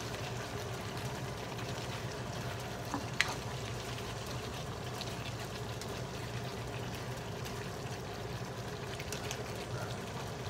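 Chicken afritada stew simmering in a nonstick frying pan as a black slotted spoon stirs it, with a sharp knock of the spoon against the pan about three seconds in and a few fainter clicks, over a steady low hum.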